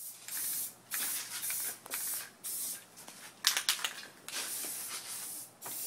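Aerosol can of Rust-Oleum high-heat 500-degree red enamel spraying in a run of short hissing bursts with brief pauses between them, with a few sharp clicks about three and a half seconds in.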